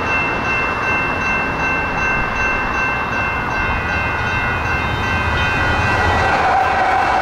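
Light rail train rolling through a grade crossing with a low rumble, growing a little louder near the end. Over it the crossing's General Signals Type 2 electronic bell rings steadily and evenly, as it does for the whole activation.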